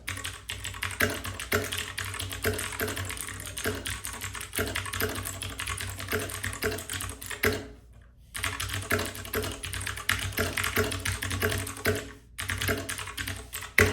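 Typing on a Royal Kludge RK60 60% mechanical keyboard with clicky blue switches: a fast, continuous run of key clicks, broken by two short pauses, about eight and twelve seconds in.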